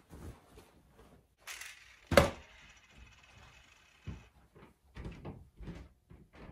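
A Panasonic clothes iron set down on an ironing board: one sharp clank about two seconds in, with a short ringing afterwards, after a rustle of the shirt being lifted off. A few soft knocks follow.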